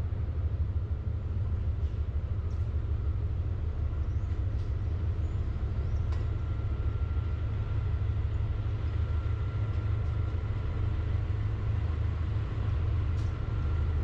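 A vehicle driving along, giving a steady low rumble of engine and road noise.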